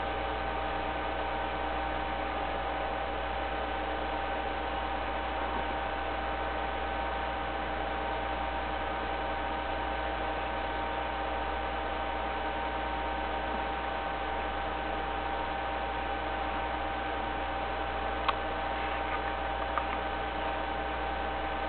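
Steady electrical hum and hiss with a few fixed whining tones above a low drone, and one sharp click about eighteen seconds in.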